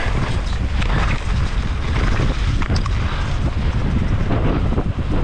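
Wind buffeting an action camera's microphone over a steady rumble and many small knocks and rattles: a downhill mountain bike riding fast over rough trail.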